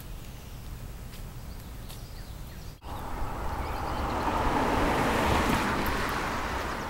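A car passing on the road, its noise swelling to a peak about five seconds in and then easing off as it moves away. Before it, a quieter stretch of faint outdoor sound.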